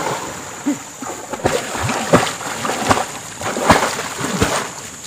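A person moving through river water, with a splash or slosh about every 0.7 s as they wade or swim across the current.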